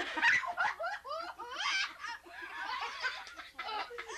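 High-pitched laughter, broken into quick short peals with brief pauses.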